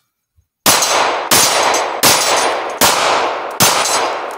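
Five handgun shots about three-quarters of a second apart, each followed by a long ringing decay, fired as a timed string.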